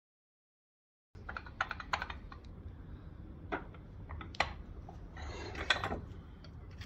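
Snode AD80 adjustable dumbbell's handle being twisted in its cradle to change the weight. Starting about a second in, the selector mechanism and plates give a series of irregular sharp clicks and clatters.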